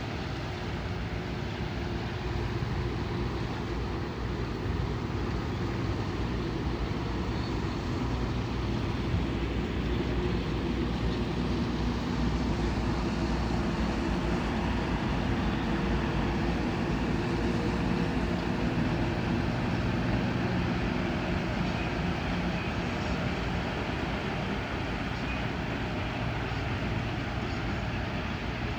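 Low, steady engine drone of a river tanker ship, growing somewhat louder through the middle and easing slightly near the end.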